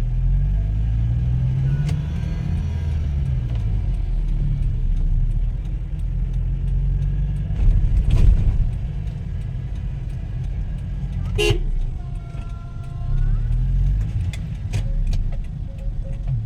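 Road vehicle engines running in slow, congested traffic, with a steady low rumble that rises and falls in pitch. About three-quarters of the way in a car horn honks once for about a second and a half.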